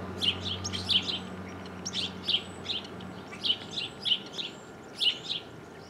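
Small bird chirping repeatedly, short high notes two or three a second, over a faint low hum that fades out about halfway through.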